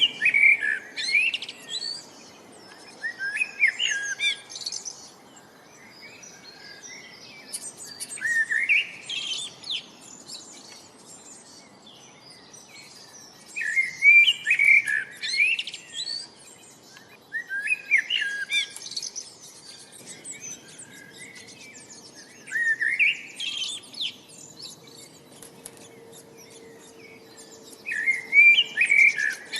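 Songbird singing short chirping phrases with rising notes, repeated every four to five seconds, over a faint steady background hiss.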